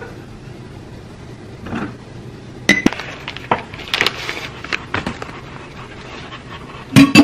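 Scattered clicks and light knocks as a container of eight-treasure rice is handled and squeezed over a ceramic plate to unmold it, with a louder knock near the end.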